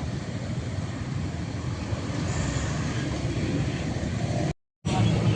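Road traffic running by: a steady low rumble of engines and tyres. The sound cuts out completely for a moment near the end.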